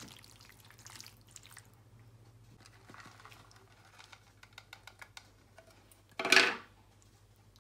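Grated cheddar cheese being sprinkled and spread by hand over pasta in a ceramic casserole dish: soft pattering and light clicks. A little after six seconds comes one short, loud rustling burst.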